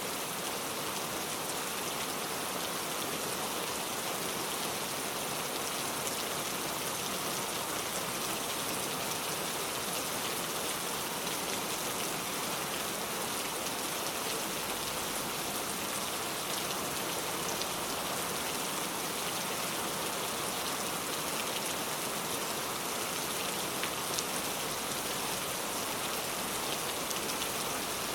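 Steady, even rain, a constant hiss with the patter of drops, with no thunder.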